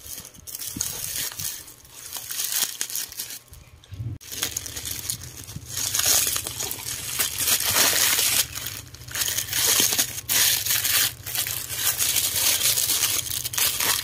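Plastic packaging crinkling and rustling as hands pull open a black plastic parcel bag and handle a clear plastic garment bag, in irregular crackles with a short lull about four seconds in.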